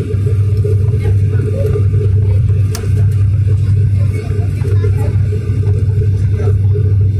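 Aircraft cabin noise during the climb after takeoff: a loud, steady low drone of the engines and airflow. There is a single sharp click about three seconds in.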